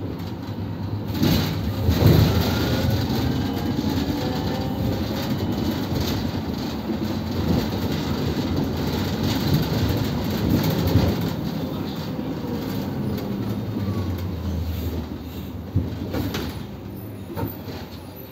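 Inside a moving electric city bus: steady road and running noise with rattles and knocks. A motor whine rises in pitch about two to four seconds in as the bus gathers speed.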